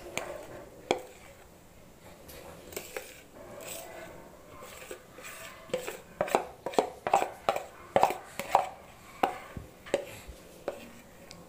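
Steel spoon scraping thick cake batter out of a mixing bowl into a cake tin: a few scattered clicks at first, then about halfway through a quick run of knocks and scrapes, two or three a second, of the spoon against the bowl.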